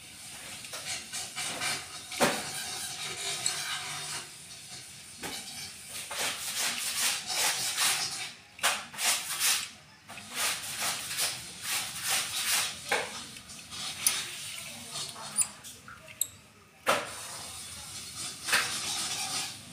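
Plastic transforming helicopter-robot toy being handled and folded: rustling and rubbing of plastic parts in the hands, broken by a few sharp clicks as parts snap or swing into place.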